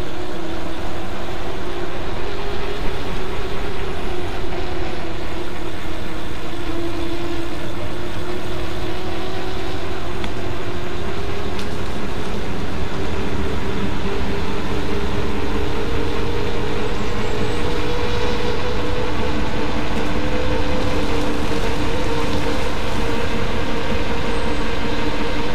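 Electric motor of a custom e-bike whining steadily under way, its pitch slowly rising as the bike gathers speed, over a constant rumble of wind and tyre noise on tarmac.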